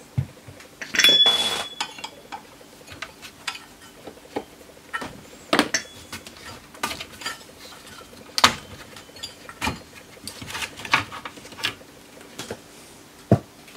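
Metal case and loose sheet-metal cover panels of a Philips PM5716 pulse generator being handled on a workbench: a scrape about a second in, then scattered clinks, taps and knocks.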